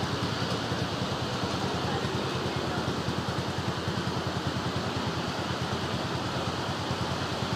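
Steady road traffic noise from cars, pickups and motorcycles on a city street, with a low fluttering rumble throughout.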